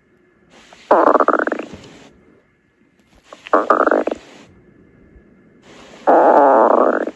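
Stomach growling: three loud growls, each about a second long and rising in pitch, a couple of seconds apart.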